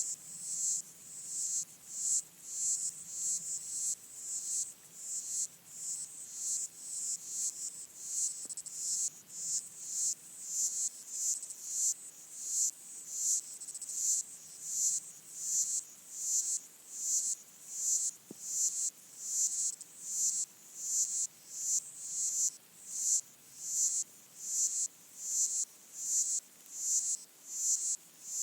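Underwater chorus of stridulating insects, presumed to be pygmy water boatmen (Micronecta), heard through a hydrophone: high, buzzy trains of chirps repeating evenly about one and a half times a second.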